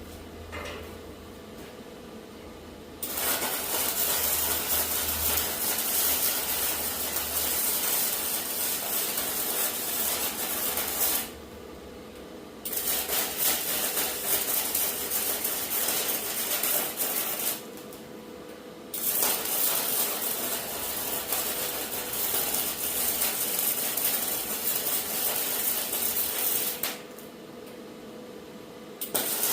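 Arc welding on scrap iron: a steady crackling sizzle laid down in three long runs of five to eight seconds each. Each run starts and stops abruptly with a short pause in between, and a fourth run starts near the end.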